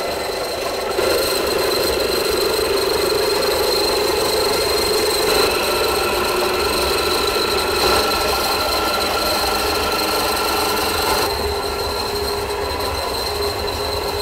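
Electric bean-grinding machine running steadily as it grinds soaked black and yellow soybeans into slurry, a steady drone with a high whine over it. It is loud enough to give a headache, and it grows louder about a second in.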